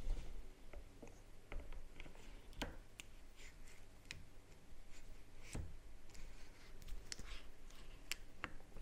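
Scattered small clicks and knocks from a camera with a long telephoto lens being handled and fitted onto a tripod's ball head clamp. The two sharpest knocks come about two and a half and five and a half seconds in.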